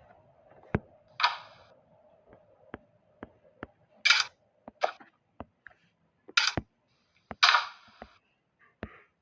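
Handling noises: an irregular run of sharp clicks and knocks, with a few short, louder rustling scrapes in between.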